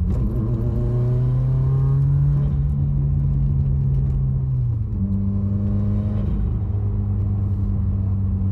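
Turbocharged car engine running under way, its pitch rising over the first two seconds and holding, then dropping and settling lower about five seconds in as the revs fall.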